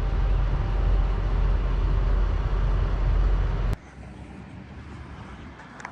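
Steady low vehicle rumble, the sound of a heavy vehicle running close by. It cuts off abruptly a little under four seconds in, leaving a much quieter outdoor background.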